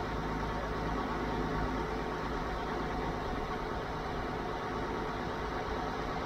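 Grain auger running steadily, a constant low mechanical drone with the hiss of soybeans moving from a gravity wagon through the auger.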